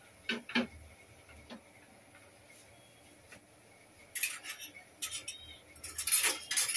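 Cumin seeds crackling and spluttering in hot oil in a pan, in quick clusters of sharp pops that start about four seconds in. Two light knocks near the start.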